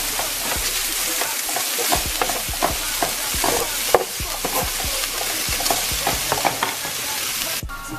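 Sausage patties sizzling on a hot griddle, a dense hiss with many small crackles and pops of spattering fat. It cuts off suddenly just before the end.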